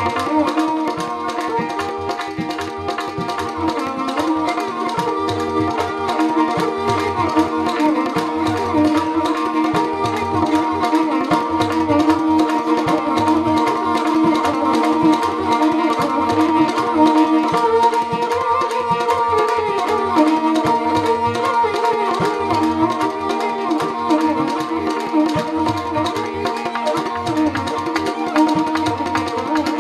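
Rajasthani folk instrumental music: a kamaicha, a bowed folk lute, plays a wavering melody over a steady drone, while a morchang (jaw harp) and a hand drum keep a fast, even rhythm.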